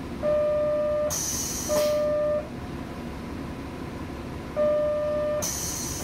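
Train door buzzer sounding three times, one steady tone each time: about a second long, then half a second, then nearly a second. A hiss of air from the pneumatic door gear follows the first and last buzz.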